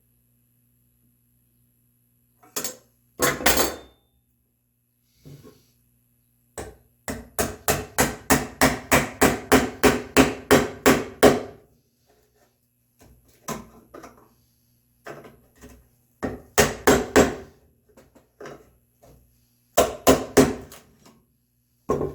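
Mallet driving a chisel to chop a mortise in red oak. There are scattered single blows and short groups, with a fast run of about twenty strikes at roughly four to five a second about a third of the way in.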